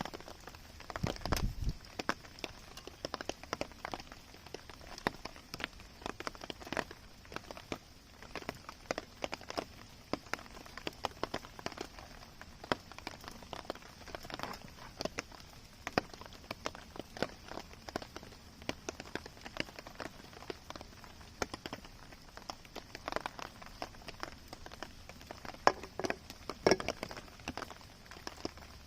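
Light rain striking a tarp: a stream of irregular sharp taps over a steady hiss, with a low thump about a second in.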